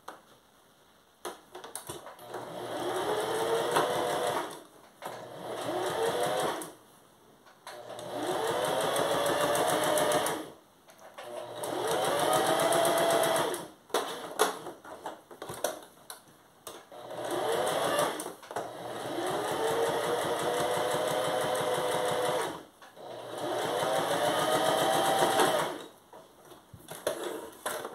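Electric sewing machine stitching in short runs, starting and stopping about six times, its motor whine rising in pitch as each run speeds up. Between runs there are small clicks and fabric handling while the ear-shaped piece is pivoted around its curve.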